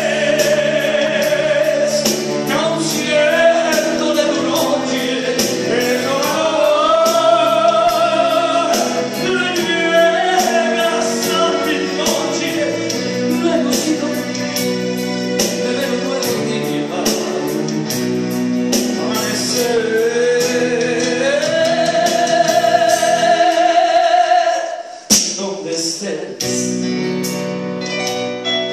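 Live male singing voice through a microphone, holding long notes with vibrato, over sustained chords from a Korg electronic keyboard. About 25 seconds in the music breaks off sharply, then resumes more quietly.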